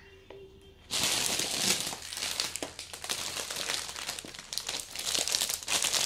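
Plastic wrapping crinkling and crackling as a packet is handled close to the microphone. It starts suddenly about a second in and goes on as a dense run of small crackles.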